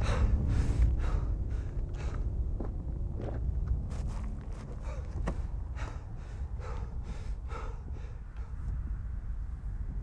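A man breathing hard in distress: ragged gasps and sighs, quick at first and slowing toward the end, over a low steady rumble.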